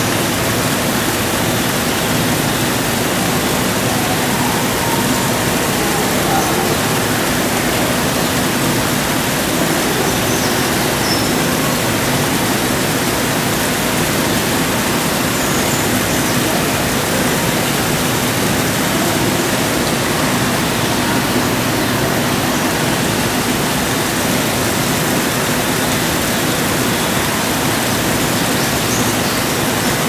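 Steady rushing noise of falling water, like a small indoor waterfall or water feature, with a faint low hum underneath.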